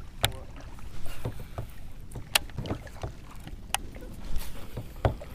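Scattered light clicks and knocks, about one a second, as fishing tackle is handled in a plastic kayak while a jig is rigged, over a low steady background.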